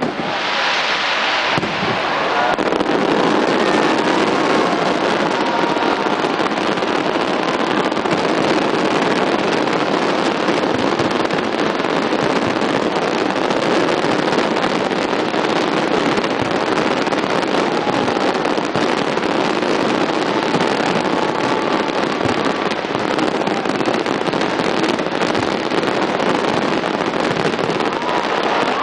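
A large fireworks display going off in a dense, continuous barrage of crackles and bangs. A bright hissing burst comes in the first second or so, then the noise holds at a steady level without a break.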